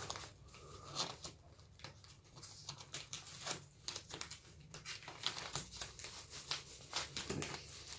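Plastic covers being handled and pulled at, crinkling and rustling with irregular small crackles and clicks.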